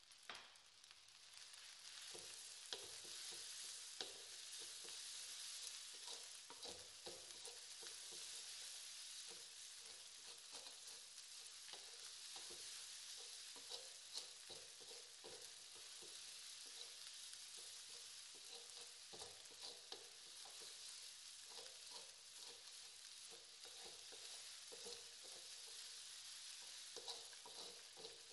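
Fried rice sizzling in an aluminium wok while being stir-fried, with irregular scrapes and knocks of a wooden spatula against the pan. The rice is being fried until it starts to smell scorched.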